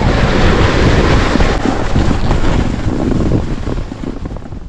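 Wind rushing over a moving GoPro's microphone, a loud steady rumbling noise that fades out near the end.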